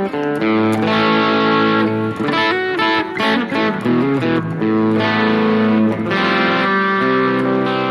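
Harley Benton Fusion electric guitar on its full humbucker, played with a light crunch tone through a modeling unit: picked chords and single-note lines with held, vibrato-bent notes.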